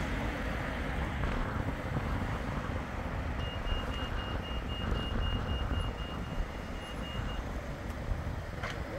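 Steady wind and road-traffic rumble as a Bombardier Flexity 2 tram approaches along the track. A rapid run of high electronic beeps sounds for about four seconds in the middle.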